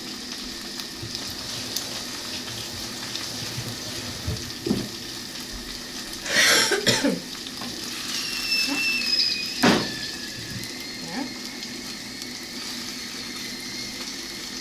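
Sausages and eggs sizzling in a frying pan. About eight seconds in, the sausages give a thin high squeal that slides slightly down, with a louder burst of noise just before it and a sharp knock shortly after.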